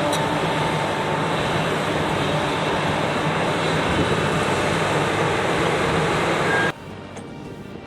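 Heavy machinery running with a loud, steady mechanical noise that cuts off abruptly near the end, leaving a quieter background noise.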